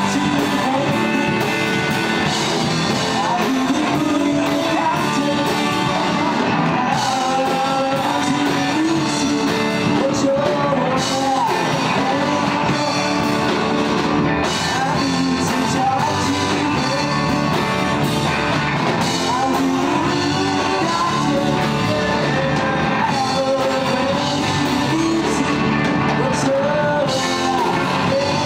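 A rock band playing live: electric guitars and a drum kit, with a male singer's voice over them.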